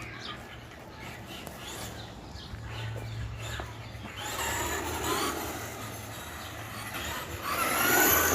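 Traxxas Rustler RC truck's electric motor whining and its tyres running over the ground as it is driven, surging louder about four seconds in and again near the end.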